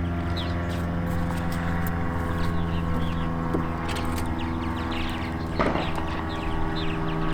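An engine running steadily at an even speed, with birds chirping repeatedly throughout and a brief rushing noise a little over halfway through.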